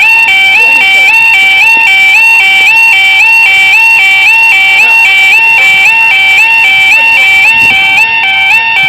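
Level crossing audible warning alarm sounding, a steady electronic two-tone wail that alternates between a lower and a higher pitch about three times a second.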